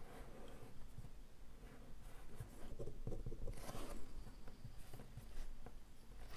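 Faint scratchy rustling of a cut piece of milk carton being handled and rubbed with fingertips, with a louder rustle about three and a half seconds in.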